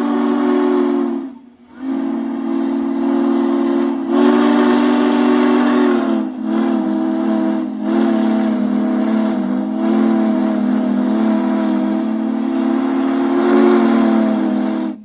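Union Pacific 4014 Big Boy steam locomotive's chime whistle blowing a chord of several notes: a blast of about a second and a half, a short break, then one long drawn-out blast of some thirteen seconds that wavers briefly twice.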